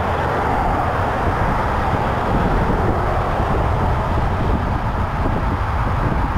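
Steady tyre and engine noise from busy freeway traffic running alongside, mixed with a low wind rumble on the microphone.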